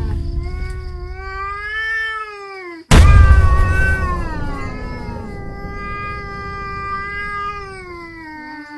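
Domestic cat giving long, drawn-out meows that slowly rise and fall in pitch. One call ends about three seconds in, and a second, nearly six seconds long, follows at once with a burst of low rumbling noise at its start.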